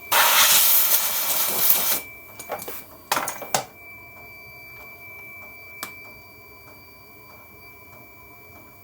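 Metal-lathe tooling being handled while a chipped carbide insert is turned round to a fresh edge: a loud hiss for about two seconds, then a run of clicks and taps, over a steady high whine.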